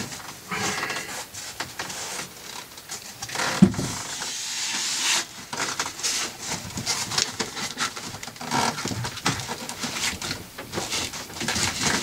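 A white panel being handled and slid into place over a battery compartment, rubbing and scraping against the fibreglass with a string of knocks and clicks; one sharp knock comes a little under four seconds in and a longer scrape about a second later.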